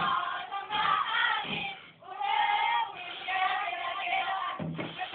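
Saman dancers chanting in unison, a group of voices singing in short phrases with brief breaks between them.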